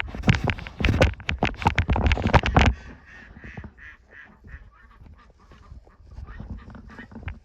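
Domestic waterfowl honking and calling repeatedly. For the first few seconds they are nearly drowned by loud, rapid crunching knocks, like footsteps or handling close to the microphone; after that the calls go on alone and more quietly.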